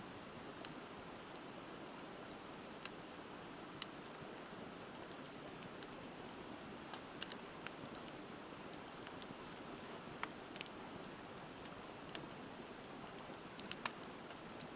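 Wood fire crackling with scattered sharp pops, a few close together near the end, over the steady rush of a river.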